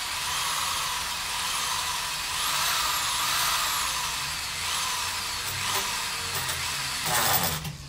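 Electric drill boring a bolt hole, its whine rising and falling as the motor speed changes under the load of the bit. It stops abruptly near the end.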